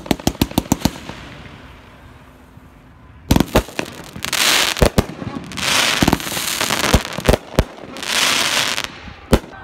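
Consumer fireworks cakes (Iron Gorilla with Captain America) firing. It opens with a quick string of about eight sharp pops, then goes quiet for about two seconds. After that come repeated bangs, with three stretches of crackling in between, and two last reports near the end.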